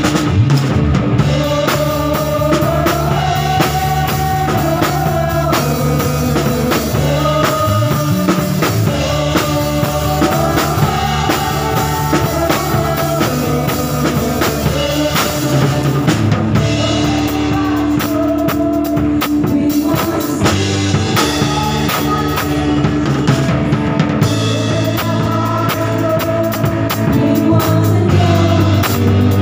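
Acoustic drum kit played along with a recorded worship song: a sung melody over guitar and bass, with a steady beat of drum and cymbal strokes.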